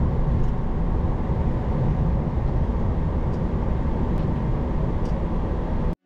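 Steady low rumble inside a Boeing 737-800's flight deck while taxiing, engines at idle, with a few faint ticks; it cuts off suddenly just before the end.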